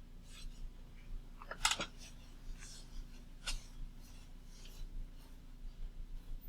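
Faint scattered scratches and soft clicks over a low steady electrical hum, the loudest a quick scrape about a second and a half in.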